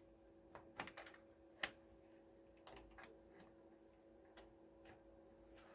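Near silence with a faint steady hum and a few light, scattered clicks and taps, the sharpest about one and a half seconds in.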